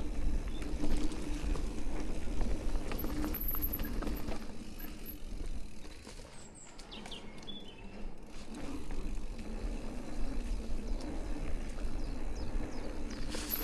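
Electric mountain bike with a DJI drive motor ridden on a trail: tyre and wind rumble with a faint steady motor hum, easing off for a moment about halfway. High bird chirps come in a few seconds in.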